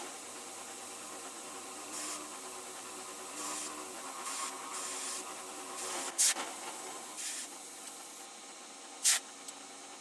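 Vertical milling machine running with an end mill cutting a slot in a cold-rolled steel jaw blank: a steady hum under a series of short hissing bursts, with two sharp clicks, one past the middle and one near the end. The sound fades in the last seconds as the spindle winds down.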